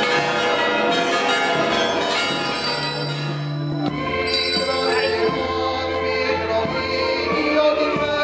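Church bells pealing, with music coming in about four seconds in, sustained low notes under the bells.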